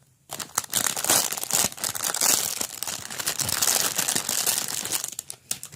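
Crinkly plastic packaging being handled, crumpled and pulled open as a squishy toy is taken out of its bag: a dense crackling rustle for about five seconds.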